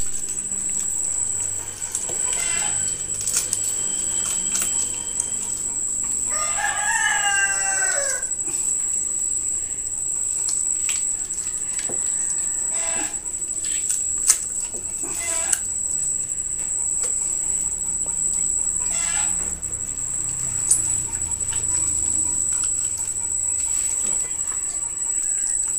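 A rooster crowing: one long crow of about two seconds, some six seconds in, followed later by a few shorter, fainter calls.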